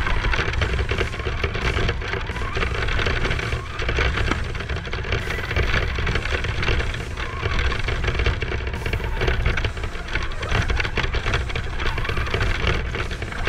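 An RC car driving over a rough dirt track, heard from a camera mounted on the car: a steady low rumble with constant rattling and knocking as the chassis jolts over sticks and bumps.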